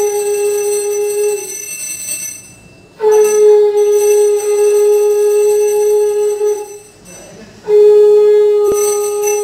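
Conch shell (shankha) blown in long, steady blasts: one is already sounding at the start and ends after about a second and a half, a second runs for about three and a half seconds, and a third begins near the end and is still sounding. A single sharp click falls during the third blast.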